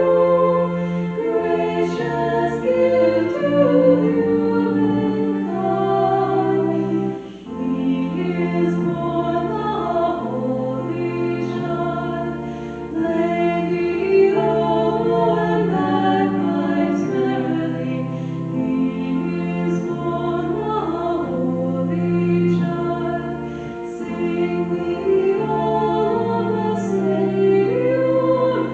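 Church choir singing a hymn in parts, with held chords that change together and a short break about seven seconds in.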